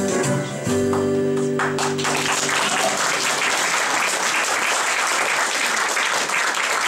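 Instrumental music ends on a held final chord about two seconds in, and an audience breaks into applause that carries on.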